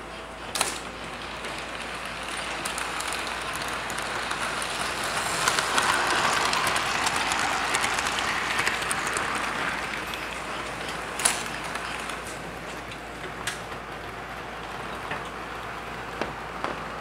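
American Flyer S-gauge model trains running on the layout track, a rattling rumble that grows louder as a train rolls close past between about four and ten seconds in, then fades. A few sharp clicks sound over it, one right at the start and a louder one about eleven seconds in.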